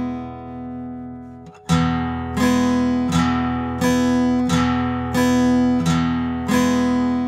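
Acoustic guitar strummed slowly with a pick, downstrokes only, in the alternating bass-strings then treble-strings pattern on one held open chord. A chord first rings out and dies away, then about one and a half seconds in eight even strokes follow, roughly 0.7 s apart, each left to ring.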